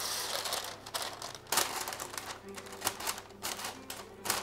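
Scissors snipping greaseproof paper, with the sheet crinkling: a run of irregular sharp clicks and rustles.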